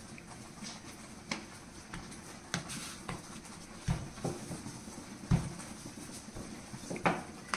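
Wooden rolling pin and hands knocking on a marble rolling board as dough is folded and rolled: a handful of separate soft knocks and thuds about a second or so apart, over a faint steady background.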